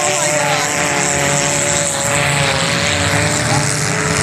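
Engines of a pack of junk race cars running together on a dirt track: a loud, continuous drone of several engines at once, their pitches slowly rising and falling as the drivers rev and lift.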